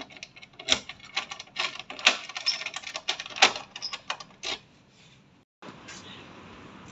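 Handling noise: a fast, irregular run of clicks and rustles as the phone is carried, cutting off suddenly about five and a half seconds in. A steady faint hiss of open-air background follows.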